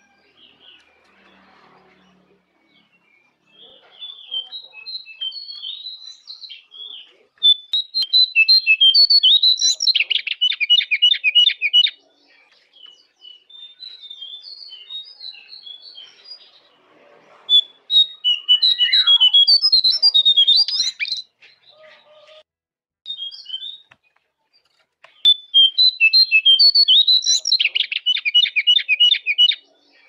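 Jongkangan songbird singing: runs of quick high chirps and whistled notes that build into a fast, loud trill, in three bouts with short pauses between them.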